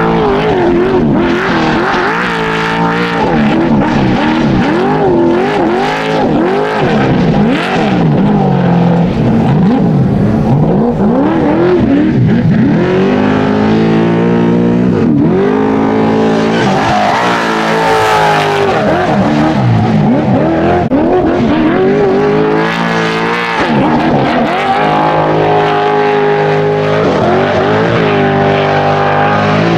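Trophy Truck V8 race engines revving hard, the pitch swinging up and down again and again, with stretches held at steady high revs near the middle and toward the end.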